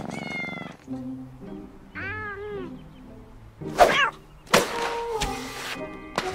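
A domestic cat meowing three times: a call at the start, one about two seconds in, and a loud one about four seconds in. A sudden loud burst of noise follows about a second later. Background music plays throughout.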